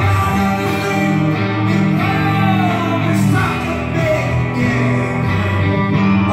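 Live rock band playing at full volume: electric guitar over steady bass notes, with a man singing.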